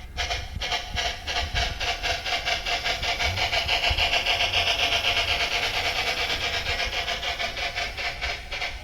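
Sound decoder of a Bachmann EM-1 model steam locomotive playing rapid, even steam-exhaust chuffs through its small speaker as the model runs forward, about five chuffs a second, louder in the middle, with a steady hum underneath.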